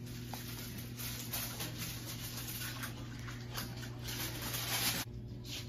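Indoor room noise: a steady low electrical or ventilation hum under a faint hiss that swells and fades, the hiss dropping away about five seconds in.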